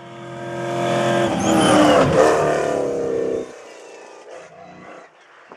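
Rally car racing past at speed on a gravel road. The engine grows louder as it approaches, then drops in pitch as it passes close by with a rush of noise, and the sound cuts off suddenly about three and a half seconds in.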